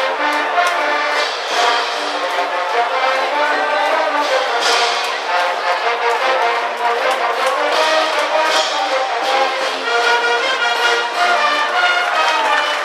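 A high school brass band playing a baseball cheering tune, with trumpets and trombones holding sustained melody notes.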